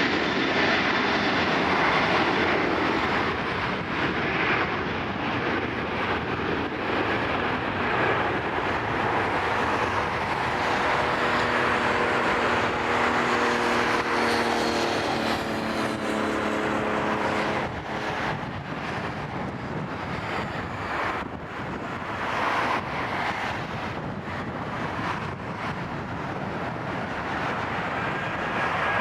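Jet airliner close by on its landing approach: steady jet engine noise. A group of low humming tones joins in about ten seconds in and cuts off suddenly at about seventeen seconds.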